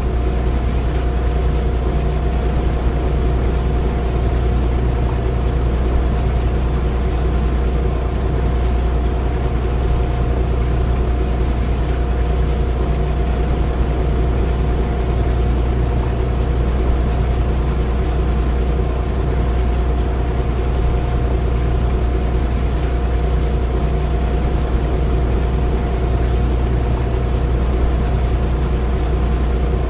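A large engine running steadily: an even, deep rumble with a constant hum above it.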